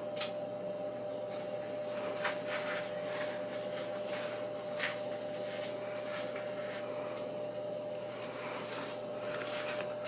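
Hampton Bay 42-inch ceiling fan from 1997 running: a steady motor hum with one clear tone over an even rush of air, with a few scattered short clicks.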